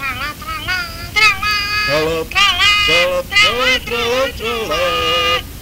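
High, childlike-sounding voices singing a short jingle with sliding, wavering pitch that introduces the news bulletin. It stops just before the end.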